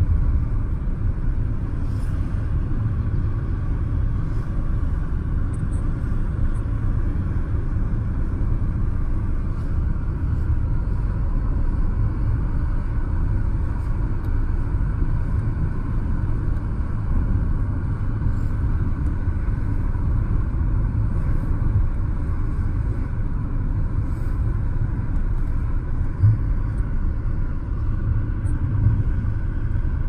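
Steady low rumble of tyres and engine heard inside a car driving at speed, with one brief thump near the end.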